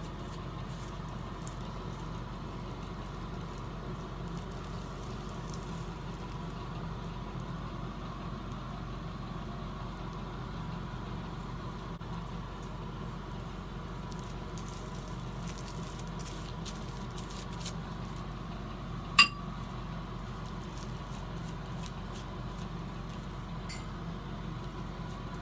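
Steady low hum with faint scattered ticks and soft squishes as a tint brush and gloved hands work bleach into hair; one sharp clink about three quarters of the way through.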